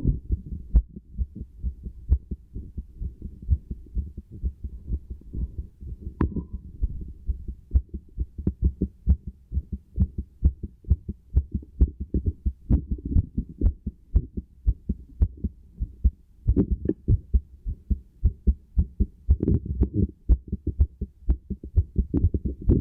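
Human heartbeat heard through a stethoscope: a steady run of muffled low thumps, with stretches of low rushing noise swelling in now and then.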